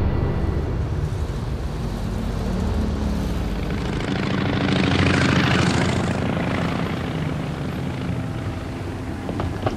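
A passing vehicle's noise swells to a peak about five seconds in, then fades, over a low steady hum.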